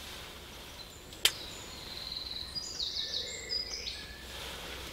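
Birds calling in a quick run of short high notes about three seconds in, over faint outdoor background. A single sharp click a little over a second in is the loudest sound.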